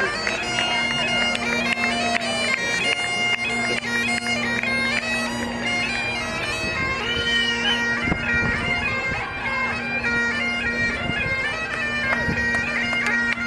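Bagpipes playing a tune over a steady, unbroken drone, the melody stepping from note to note.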